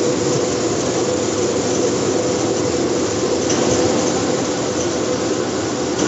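WEMS-800 brush-roller vegetable washing and peeling machine running with a load of potatoes: a steady mechanical drone with a constant hum from its motor-driven brush rollers.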